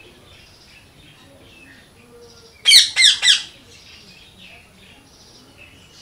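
A parakeet gives three loud calls in quick succession, each falling in pitch, a little before halfway, over faint chirping of small birds.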